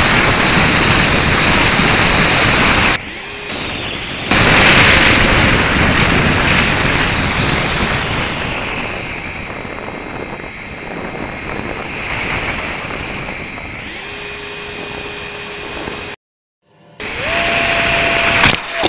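Onboard sound of a 50 mm electric ducted fan on a small RC foam jet in flight: a loud rush of fan and wind noise that drops out briefly about three seconds in and again near the end, with a steady fan whine showing as the power eases. The fan then spools back up with a rising whine just before a sharp crash into a chain-link fence at the very end.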